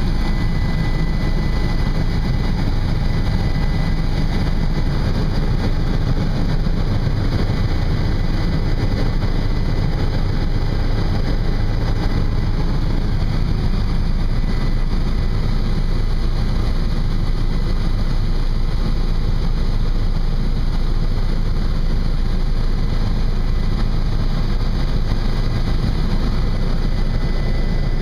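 Steady helicopter cabin noise in flight: the low drone of the engine and rotor heard from inside the cabin, with a thin steady whine above it.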